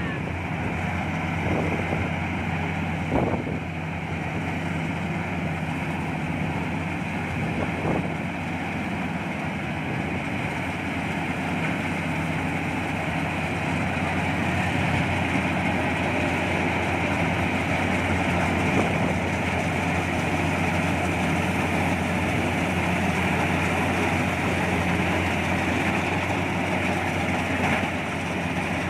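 Combine harvester running steadily, its engine a constant drone with a steady higher whine above it. A few brief knocks sound in the first eight seconds.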